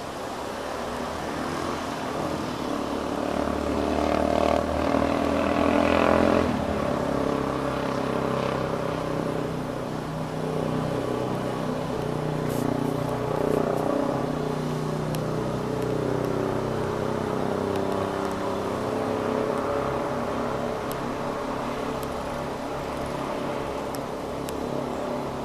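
A motor engine running close by. It grows louder over the first six seconds, changes pitch abruptly, then keeps running at a fairly even level.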